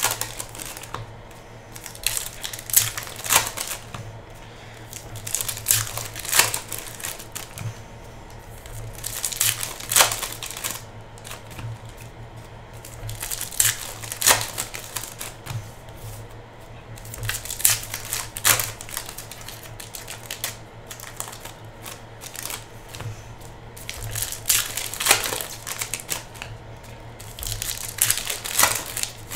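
Foil trading-card pack wrappers crinkling and tearing as hobby packs are opened and handled, in irregular bursts of rustling a second or two apart, over a steady low hum.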